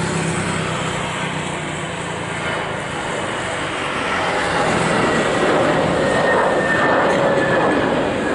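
Jet aircraft noise: a steady rushing sound with a faint high whine, growing louder from about halfway through. A low engine hum fades away over the first few seconds.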